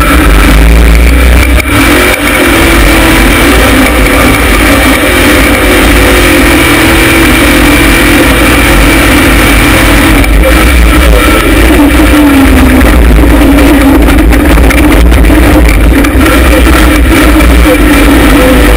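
LS V8 engine of a rock bouncer running hard under full throttle on a hill climb, the revs rising and falling repeatedly over a heavy rumble.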